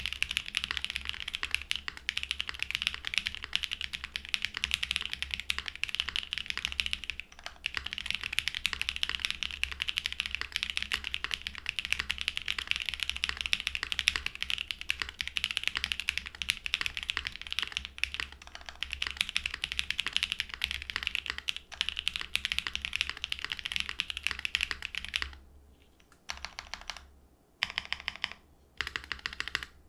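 Fast, continuous typing on an ai03 Vega mechanical keyboard with lubed Nolive long-pole linear switches on a full aluminum plate, GMK Modern Dolch 2 keycaps, and case and plate foam; the long-pole bottom-out is pronounced. Near the end the steady typing stops and the modifier keys are pressed in short groups with brief pauses between them.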